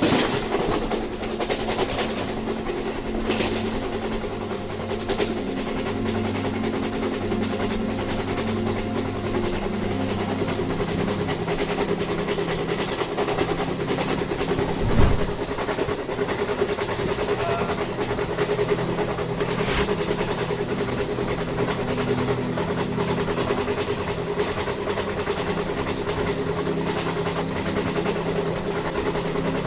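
A train running on the rails: a steady mechanical drone with scattered clicks from the track, and one louder thump about halfway through.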